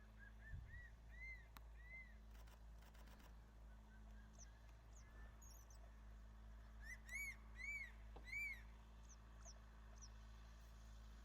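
Crested serpent eagle calling: a run of faint whistled notes, each rising and falling, climbing in pitch over the first two seconds, then three louder ringing whistles about seven seconds in.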